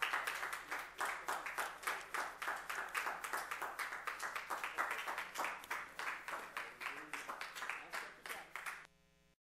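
Congregation applauding: many hands clapping quickly and steadily. The applause cuts off suddenly near the end.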